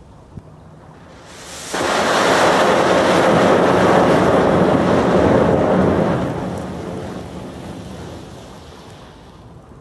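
A foil-wrapped matches volcano igniting and burning. A hiss builds, then jumps suddenly to a loud rushing hiss of the flame jet about two seconds in. It holds for several seconds, then gradually dies down as the burn weakens.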